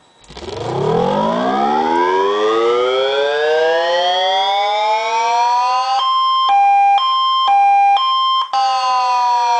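Homemade siren starting up and rising in a slow wail, switching about six seconds in to a high-low two-tone pattern changing about twice a second, then falling back into a slow downward wail near the end.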